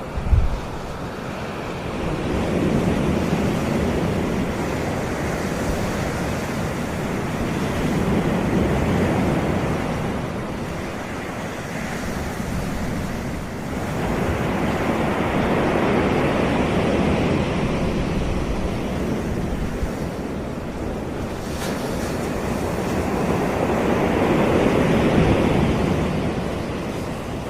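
Ocean surf washing onto a beach, swelling and easing in slow surges every several seconds. A brief low thump comes just after the start.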